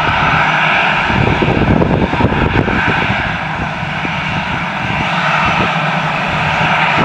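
Airbus A319's twin jet engines running steadily at taxi power as the airliner rolls along the taxiway: an even, loud rushing hum.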